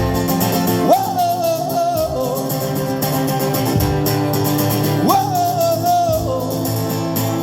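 Live singer with acoustic-style guitar accompaniment: two long sung "whoa" notes, each sliding up into pitch and held for about a second and a half, over steadily strummed chords.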